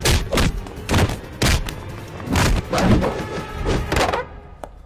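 Film fight sound effects: a rapid string of heavy punches and body thuds, about eight hits, over dramatic background music, stopping a little after four seconds in.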